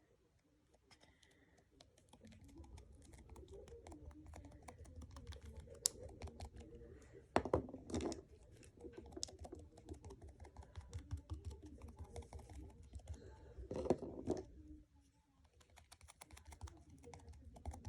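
Faint, rapid soft clicks and crackles of sticky slime being handled, over a low steady hum, with a few sharper single clicks; it falls nearly silent in the first two seconds and again briefly near the end.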